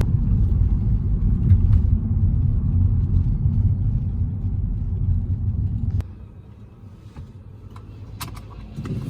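Steady low rumble of a car on the road, heard from inside the cabin, which stops abruptly about six seconds in. A quieter stretch follows, with a few light clicks near the end.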